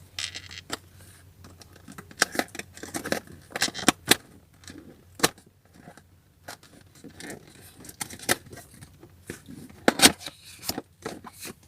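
Irregular clicks, crinkles and scrapes of packaging being handled, with no steady pattern, as a boxed hair styler is unpacked.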